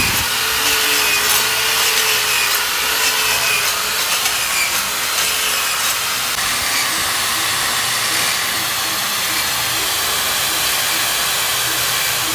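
Electric drill running steadily under load, its bit grinding into the metal of a bicycle rim's parts: a continuous hissing grind with a faint wavering whine.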